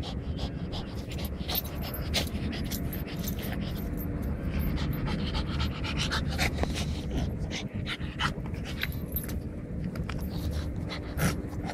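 French bulldog breathing hard through its mouth and nose while gripping and tugging a plush toy, a run of many short, irregular noisy breaths.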